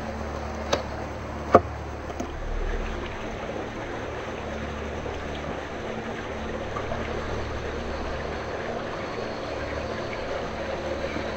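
A small electric RC crawler's motor and drivetrain humming steadily as it drives, with a few sharp clicks near the start, the loudest about a second and a half in.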